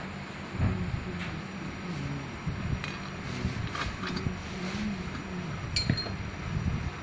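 Scattered metal clinks and taps as a steel sleeve and bearing are worked by hand into the bore of a Komatsu SAA6D140E-5 water pump housing. One sharper, ringing clink comes near the end.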